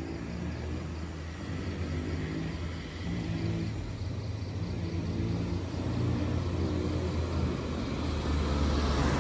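A truck engine running with a low, steady rumble, its note rising and falling, growing louder toward the end as the truck approaches.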